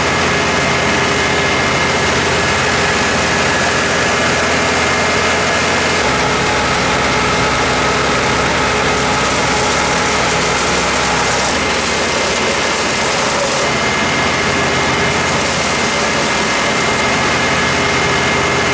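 Vermeer brush chipper's engine running steadily at speed while it chips Christmas trees and blows the chips out of its discharge chute. The tone changes abruptly twice.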